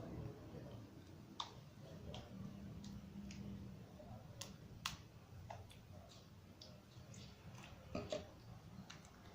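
Slime being stirred and worked in its container as it is activated with boric acid water, giving small irregular sticky clicks and pops. It is starting to come away from the sides of the container.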